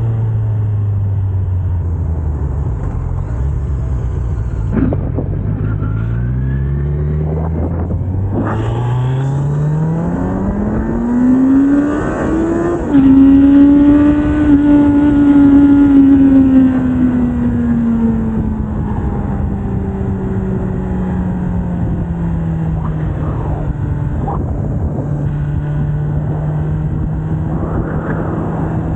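Kawasaki Z900's stock inline-four engine and exhaust under way: it slows in the first few seconds, then climbs through quick gear changes into a hard rev that is loudest about halfway through. It then eases off and settles into a steady cruise.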